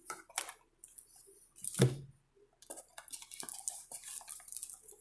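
A tarot deck being shuffled and handled: a string of quick card clicks and rustles, with one louder knock a little under two seconds in.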